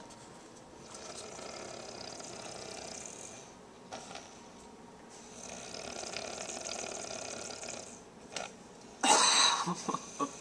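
A person asleep snoring: two long, slow snores a few seconds apart. Near the end comes a brief, loud burst of noise.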